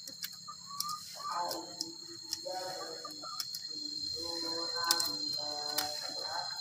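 Scissors snipping through thin drink-can metal: a series of sharp clicks, the loudest about five seconds in. A steady high insect whine runs underneath, with short pitched calls in the background.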